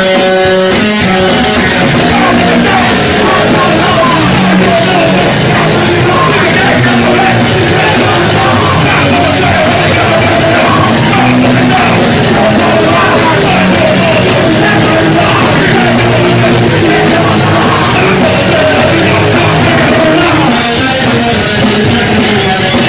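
A punk rock band playing live at full volume, with electric guitar and a singer's vocals over the band.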